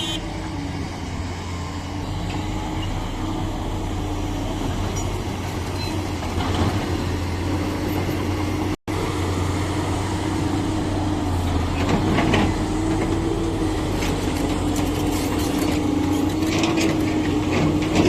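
Heavy diesel machinery engine running steadily with a constant low hum. The sound cuts out for an instant about nine seconds in.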